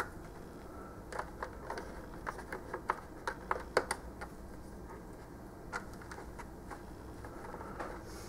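Small, irregular clicks and rustles of hands twisting a plastic wire nut onto a wire splice inside a food dehydrator's base; the clicks come thickest in the first half and thin out after.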